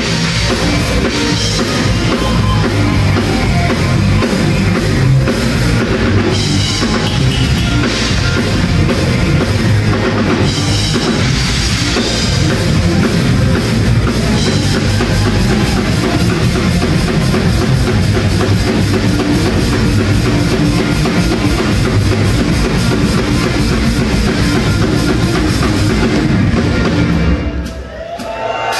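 A medieval folk-metal band playing live: heavy rock with a pounding drum kit and electric guitars, loud and dense, thinning out briefly near the end before coming back in.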